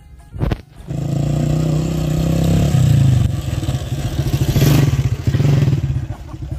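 Small motorcycle engine running close by, revving up and down a little, after a sharp knock about half a second in.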